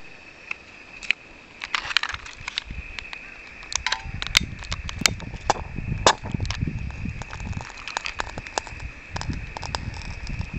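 Repeated sharp clicks of a long-nosed gas lighter's igniter being worked to light a cup of solid alcohol fuel in a Swiss army stove, with a low rumbling noise from about four seconds in.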